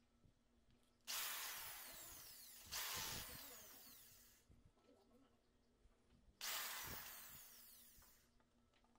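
Power drill with a step bit boring holes through a solid-body guitar's body for knobs. It runs in two bursts, about three seconds and two seconds long; each starts suddenly and trails off.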